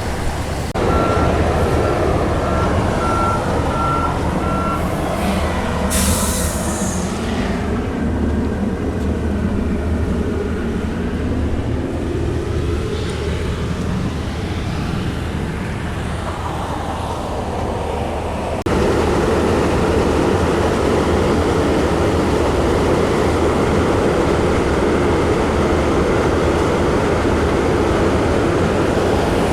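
Heavy diesel concrete trucks and a concrete pump truck running steadily during a slab pour. A string of steady beeps sounds in the first few seconds, a short burst of hiss comes about six seconds in, and the engine noise steps up abruptly louder about two-thirds of the way through.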